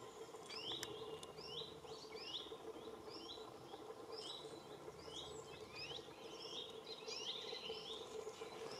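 Small birds chirping: a steady run of short, high chirps, about two or three a second, over a faint steady hum.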